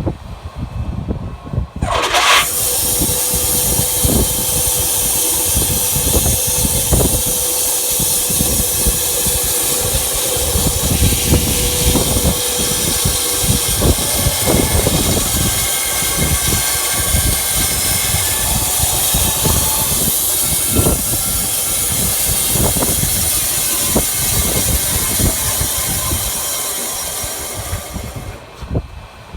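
Wood-Mizer LT15 Wide sawmill's band blade cutting through an elm burl over the running engine: a loud, steady hiss that starts abruptly about two seconds in and eases off near the end.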